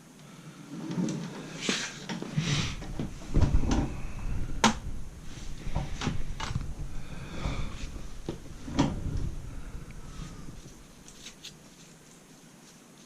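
Manual transmission parts and tools being handled during a teardown: scattered knocks, clinks and scrapes of metal, with one sharp click about four and a half seconds in, dying down near the end.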